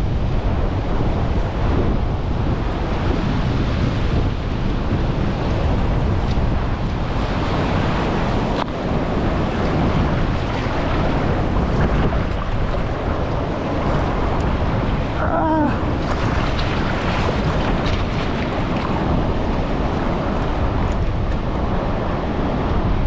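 Strong gale wind buffeting the microphone over the steady noise of ocean surf breaking on the beach.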